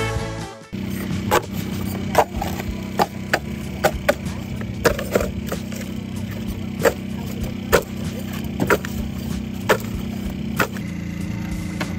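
Clay bricks clacking against each other as they are stacked by hand into a corner jig: about a dozen sharp, irregular knocks over a steady low hum.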